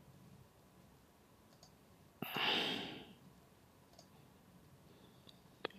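A short breathy exhale, about a second long, a little past two seconds in, with a few faint computer mouse clicks and a sharper click near the end.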